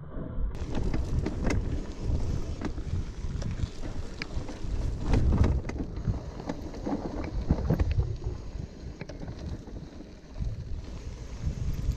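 Gravel bike rolling fast along a dirt singletrack: knobby tyres rumbling over the dirt, with frequent clicks and rattles from the bike over bumps, and wind buffeting the microphone.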